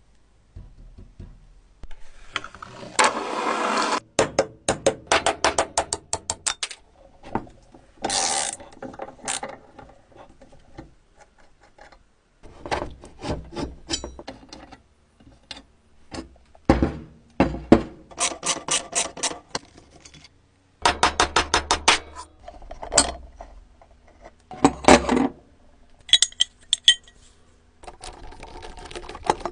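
Metal clicking, ratcheting and scraping from an old rusty coffee grinder being worked by hand. Rapid runs of evenly spaced clicks alternate with single sharp knocks and short scrapes, with pauses between them.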